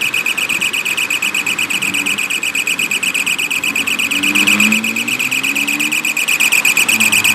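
High-pitched electronic signal beeping in a fast, even pulse. It starts abruptly and does not change.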